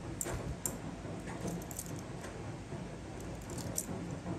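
Small scattered clicks and light rubbing from fingers handling a Seiko KS Vanac automatic wristwatch, about half a dozen irregular clicks over a steady low background hum.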